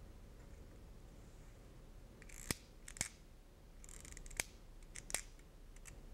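Pump-action IBC fiber-optic connector cleaner, hardened-connector version, being pumped: four sharp clicks in the second half, the first two half a second apart and the last two under a second apart. Each pump advances a fresh bit of cleaning tape across the connector end face.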